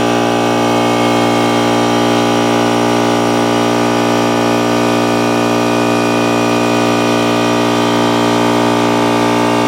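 Old two-stage stationary air compressor running steadily under load, its pump giving a deafening, even drone that reads about 105 dB on a meter.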